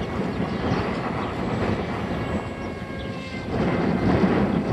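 Strong gusting wind buffeting the camera microphone: a rough, rumbling noise that grows louder about three and a half seconds in.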